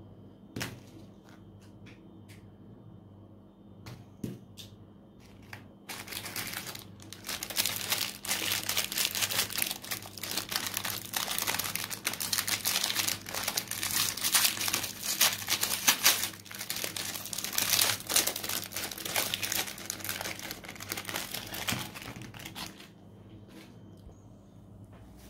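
Foil cookie wrapper crinkling and tearing as it is unwrapped by hand, a dense crackling that starts about six seconds in and fades out near the end. Before it, a couple of light clicks.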